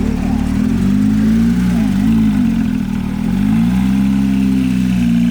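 Car engine running loud and close at low revs, its pitch dipping and rising gently with small throttle changes as the car creeps along.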